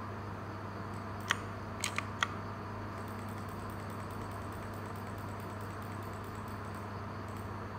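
A steady low hum and hiss, with four sharp clicks of mechanical keyboard keys between about one and two and a half seconds in.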